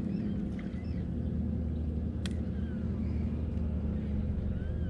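Bass boat's electric trolling motor humming steadily, with faint high whistles gliding up and down above it and one sharp click a little over two seconds in.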